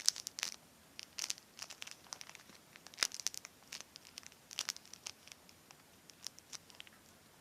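Homemade squishy crinkling as it is squeezed and handled in the hands: irregular crackles coming in small clusters.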